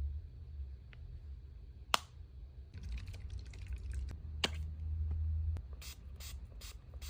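Makeup packaging being handled and opened by hand. One sharp click comes about two seconds in, then a quick run of small clicks and crinkles.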